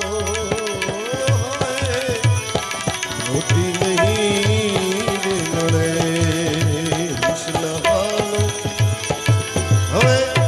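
Instrumental interlude of a Gujarati devotional bhajan: tabla keeping a steady, even beat under a lead melody that slides and wavers in pitch, over a sustained drone.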